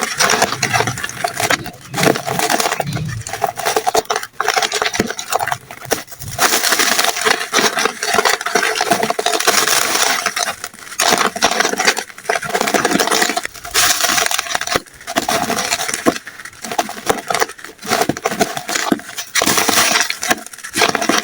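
Dry, crumbly chalk-like material being crushed and crumbled by hand: dense, continuous crunching and crackling, coming in strokes separated by brief pauses every second or two.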